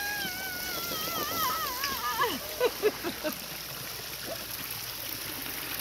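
Steady rush of a small pool waterfall. Over it, a long high-pitched vocal sound wavers up and down, then breaks into a few short falling squeals about two seconds in.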